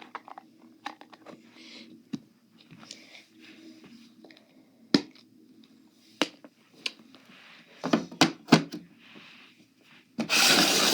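Slime being handled by hand: scattered sharp pops and clicks, then about ten seconds in a loud, dense scratchy noise begins and keeps going.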